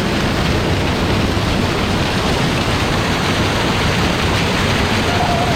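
Waterfall pouring close to the microphone: a loud, steady rush of falling water.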